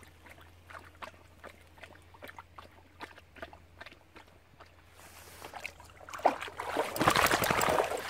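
A dog swimming in a pond, paddling with small splashes and drips. About a second before the end the splashing turns much louder and heavier as the dog wades out of the water onto the bank.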